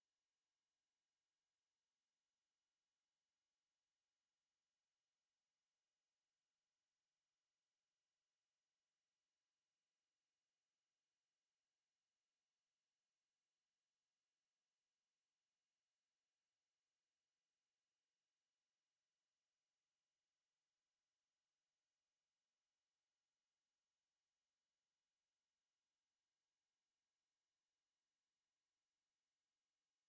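Pure sine-wave test tone at 11,364 Hz, a single steady high-pitched whistle held at constant loudness, played for a speaker test and to clear water and dust from the speaker.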